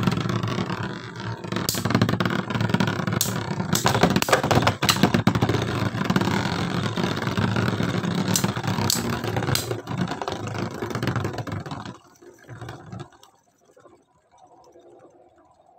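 Two Beyblade Zero-G spinning tops, one a Shinobi Ifraid 230WD, whirring and grinding as they spin on a plastic stadium floor. Sharp clacks come several times as they collide. The sound drops away suddenly about twelve seconds in and stays faint after that.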